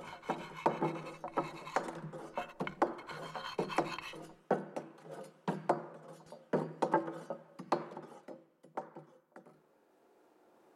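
Chalk scratching on a blackboard as a word is written: a run of irregular short scraping strokes that stops about nine and a half seconds in.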